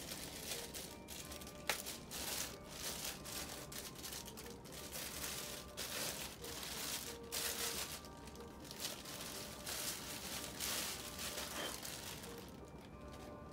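A clear plastic bag crinkling in irregular bursts as it is pulled off a resin display plaque, dying down near the end.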